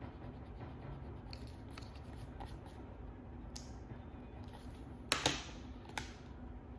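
A drawing tool stroking and scratching on sketchbook paper: scattered short strokes, with a louder pair about five seconds in and another a second later.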